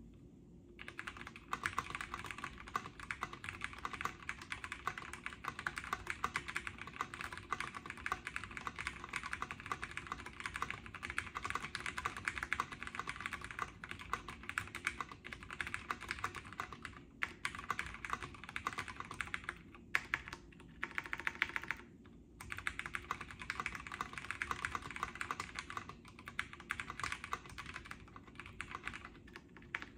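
Fast, steady typing on an OTD 356N MKII mechanical keyboard with vintage Cherry MX Brown switches and POM keycaps, a dense run of keystrokes that starts about a second in, with a few short pauses.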